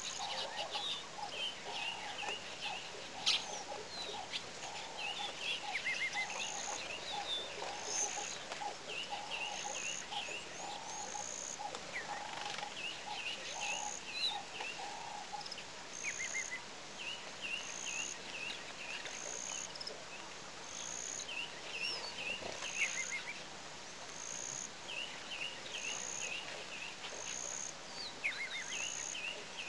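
Several wild birds calling in the bush: a short high note repeating about every second and a half, bursts of quick chirping, and a low rapid chattering that stops about twelve seconds in.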